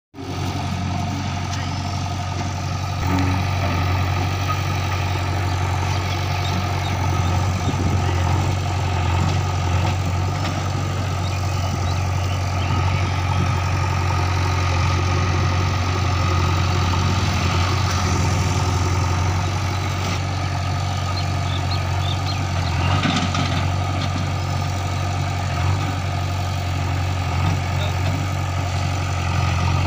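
Heavy diesel engine running steadily with a deep, even hum; it gets a little louder about three seconds in.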